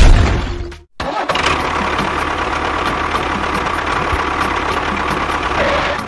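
A small motor runs steadily with an even, buzzing drone, switching on abruptly about a second in after a short break. A loud low rumble fades out just before the break.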